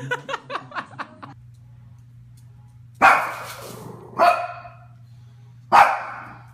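A dog barking: three loud single barks spaced a second or more apart, after a quick run of short sounds in the first second or so.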